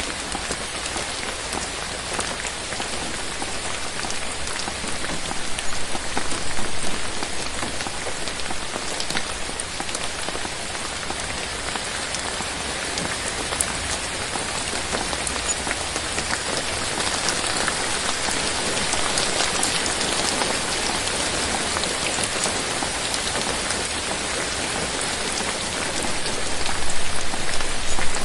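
Steady rain falling on a surface, a dense patter of drops. It swells louder briefly about six seconds in and again near the end.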